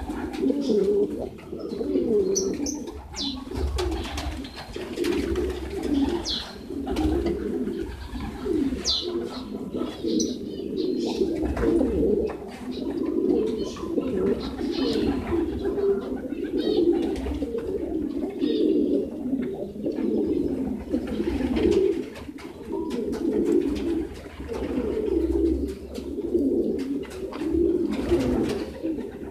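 A flock of racing pigeons cooing continuously, many voices overlapping, with light sharp clicks of beaks pecking grain off concrete.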